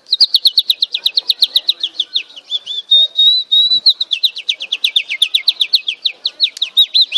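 A person imitating a canary's song: fast trills of repeated down-sliding whistled notes, about eight a second, with one steady held note about three seconds in.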